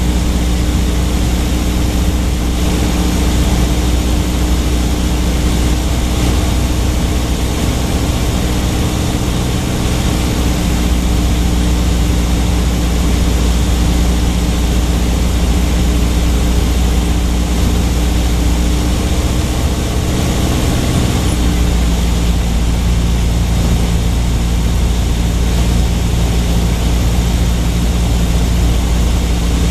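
Engine and propeller of a light aircraft in flight, droning steadily as heard inside the cockpit. The pitch of its low hum shifts slightly about two-thirds of the way through.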